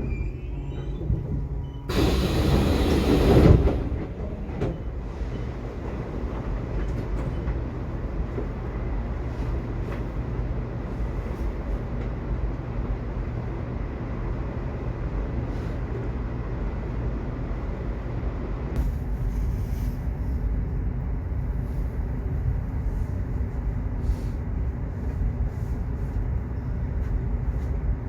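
Subway train running: a steady low rumble, with a loud hissing rush about two seconds in that lasts a second and a half.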